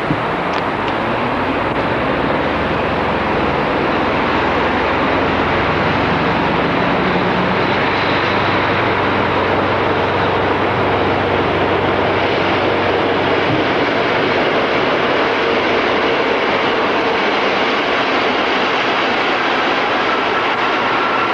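Electric locomotive hauling a train of passenger coaches, rolling steadily along the track with a dense, even running rumble. A high squeal comes in near the end.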